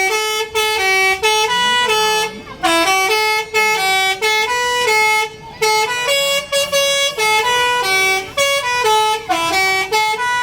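Bus basuri horn, a multi-note musical air horn, playing a quick 'telolet' tune of loud held notes that step up and down in pitch, breaking off briefly a few times.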